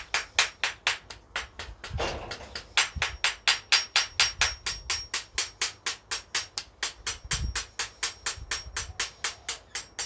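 Rapid, even tapping on an impact drill's quick-release bit holder, about five light metallic taps a second, as the collar is held back by a zip tie to jar loose a broken bit stuck in it for years.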